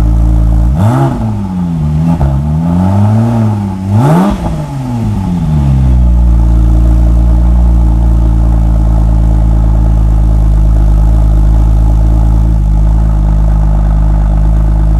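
Porsche 996 Turbo's twin-turbo flat-six through a 911Tuning.com 3-inch X Race exhaust, revved up and down several times between about one and five seconds in, then settling back to a steady idle on a cold start.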